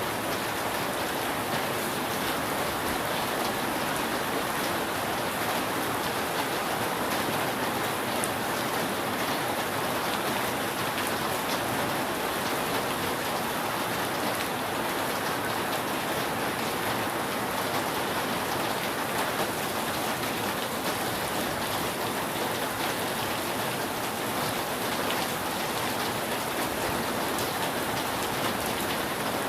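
Steady rain falling on a roof: an even, unbroken hiss of drops, with no thunder in this stretch.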